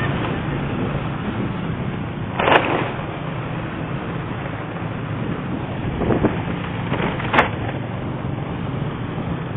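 Steady running and road noise of a vehicle on the move, with a low drone and two brief knocks, one about two and a half seconds in and one near seven and a half seconds.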